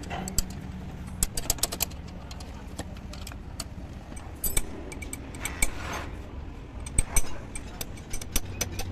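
Hand tools clicking and clinking against metal fittings under a truck's dashboard by the pedals, in scattered clusters of sharp ticks, over a low steady hum.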